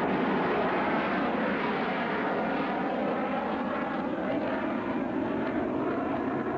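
Twin-engine jet fighter, an F-15 Eagle, flying a display pass with both afterburners lit: a steady, loud rush of jet engine noise with no change in pitch.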